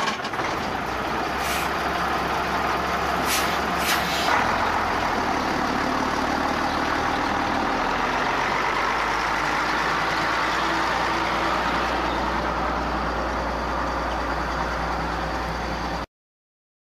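Bus engine running steadily as the bus moves off, with a few short hisses in the first four seconds. The engine note deepens about four seconds in, and the sound cuts off abruptly near the end.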